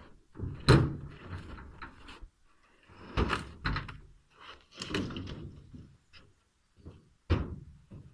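A heavy log and its lifting chain knocking and scraping on a steel trailer bed as the chain is worked free: a series of irregular thuds and clanks, the loudest about a second in and another near the end.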